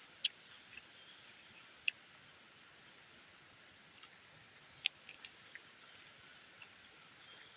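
Eating noises: scattered sharp little clicks and smacks while chewing noodles, over a faint steady hiss.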